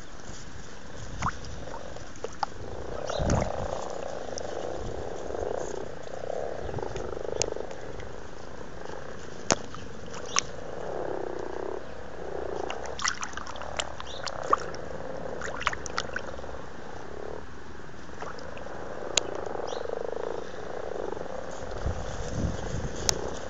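Common frogs giving their soft, low purring croaks over and over in a breeding pond, the mating call of males at spawning time, with a few sharp clicks scattered through.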